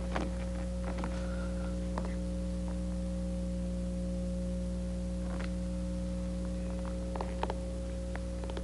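A steady low hum of several fixed tones, with a few soft scuffs and taps of mime performers' feet shifting on a stage floor, the sharpest about seven and a half seconds in.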